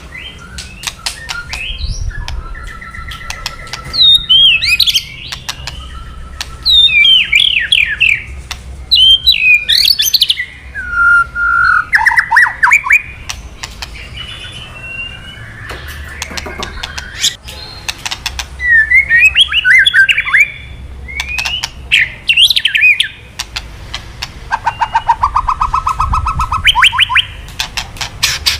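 White-rumped shama (murai batu) singing loud, quick gliding whistled phrases and fast rattling trills, mixed with many dry crackling clicks: the shama's 'kretekan' crackle, the call that excites a rival male.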